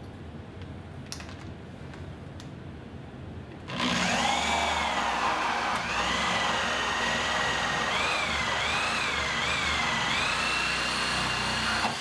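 Corded drill driving a 1-inch carbide-toothed hole saw into wood, starting about four seconds in. The motor's whine sags and recovers several times as the saw bites, then stops near the end.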